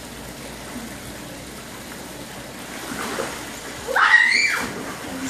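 Steady splashing trickle of a backyard pool's rock waterfall, with a short, loud high-pitched cry about four seconds in that rises and then falls.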